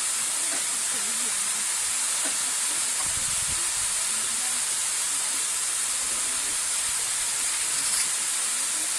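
Steady rushing of a waterfall, a hiss strongest in the high range, with a man's voice faintly intoning a Shinto norito prayer beneath it. A brief click comes near the end.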